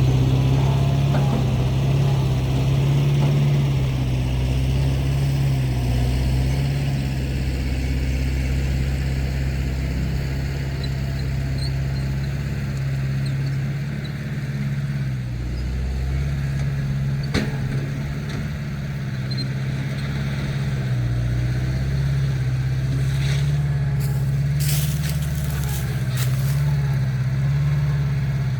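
Diesel engine of a heavy earthmoving machine running steadily, its pitch and level shifting slightly with load. There is a sharp knock about two-thirds of the way through and a few short hisses near the end.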